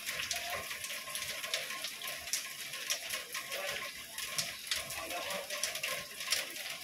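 Rustling and crackling as a canvas tote bag is handled and unfolded, with many small clicks.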